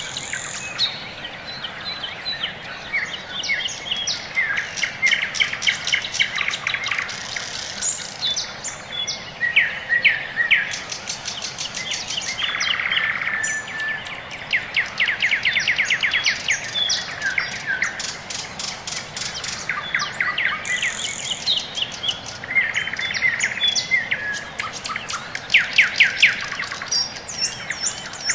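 Songbirds singing: a dense chorus of rapid trills and short chirps, overlapping without a pause.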